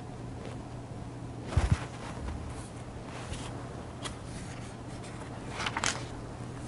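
Low background hum from the narrator's recording setup, with a dull low thump about a second and a half in, a few faint clicks, and a brief rustle near the end.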